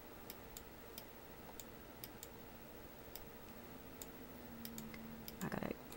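Faint, irregular clicks of a computer mouse selecting a shape on screen, with a short soft sound near the end.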